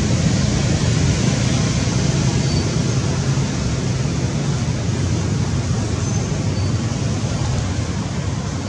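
Steady low rumbling background noise with no separate events.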